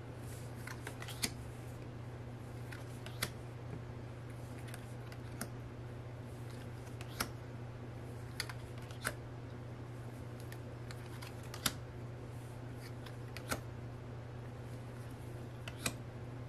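Sharp, light clicks and taps every second or two as stiff photo cards are handled and laid down one by one, over a steady low hum.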